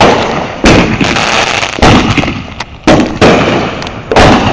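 Fireworks going off: about six sharp bangs at uneven intervals, some close together, each fading off quickly.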